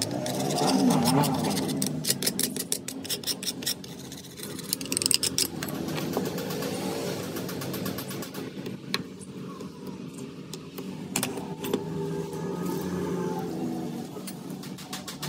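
Workshop machinery running with a steady hum whose pitch rises and falls about a second in, mixed with rapid metallic clicks and clatter.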